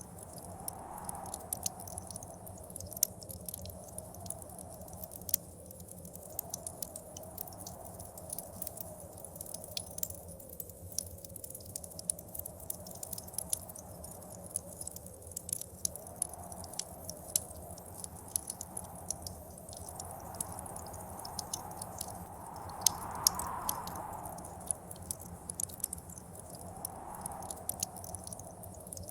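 Wood fire crackling with frequent sharp pops, over blizzard wind that gusts up and dies away every few seconds, its strongest gust about three-quarters of the way through.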